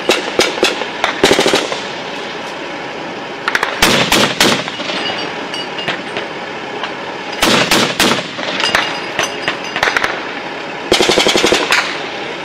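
Armoured vehicle's turret guns firing bursts of automatic fire: about six short bursts of rapid shots, with gaps of a second or more between them.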